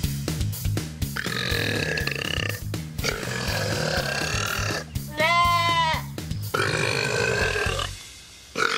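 A man belching three times, each belch long and drawn out and lasting about a second and a half. Just after the middle comes a short pitched animal call. Background music with a steady beat runs underneath.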